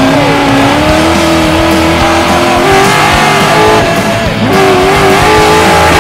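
Drift car's engine held high in the revs while the tyres screech through a slide, heard from inside the cabin. The engine note climbs slowly, dips about four seconds in, then climbs again.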